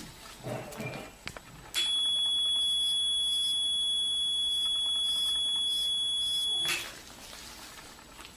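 Electrosurgical unit's steady, high-pitched activation tone, a single unbroken beep lasting about five seconds. It starts abruptly about two seconds in and cuts off sharply, sounding while the fine-tipped electrode is energised against a mole to burn it off.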